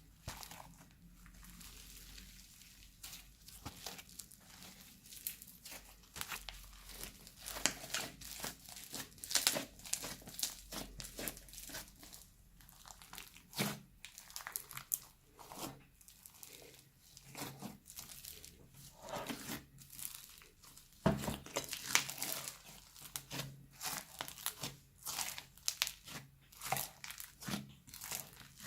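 Slime being squished, stretched and folded together by hand, making irregular crackling and clicking sounds.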